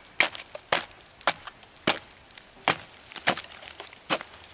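Chopping strikes into a tree's wood, about seven sharp blows spaced half a second to a second apart.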